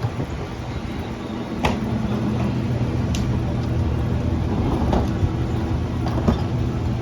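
CNG Mack LR garbage truck's engine running steadily, getting louder about a second and a half in, with a few sharp knocks and clanks at intervals.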